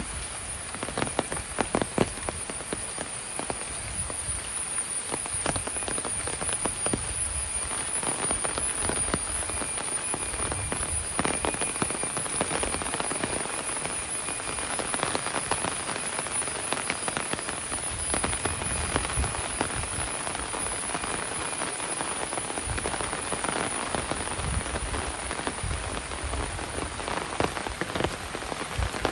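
Heavy rain falling steadily, with many sharp drop impacts close by.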